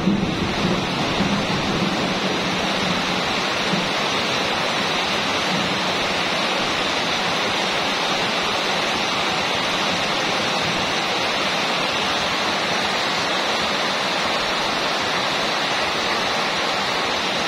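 Heavy rain falling steadily on a corrugated metal roof, an even rushing patter. A low thunder rumble dies away in the first few seconds.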